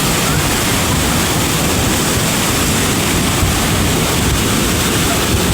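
Swollen floodwater rushing, a loud steady noise without let-up.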